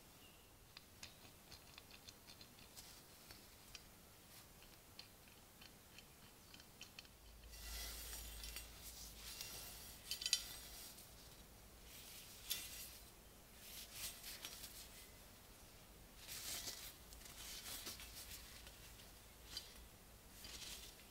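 Quiet handling sounds of a steel bayonet turned in gloved hands: light ticks at first, then short bursts of rustling and scraping every second or two. A faint low hum sets in about seven seconds in.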